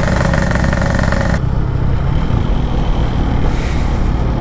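Two-stroke motorcycle engine running steadily under way; a higher whine in its note cuts off suddenly about a second and a half in, leaving the lower rumble.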